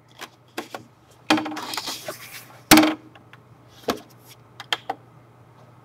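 Hand handling a plastic device: scattered clicks and knocks, a rattling stretch of about a second a little over a second in, and one loud knock near the middle, over a low steady hum.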